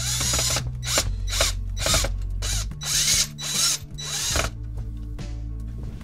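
Cordless drill-driver run in a string of about eight short bursts with a ratcheting clatter, driving a screw into the heater's fan motor mounting bracket; the bursts stop after about four and a half seconds.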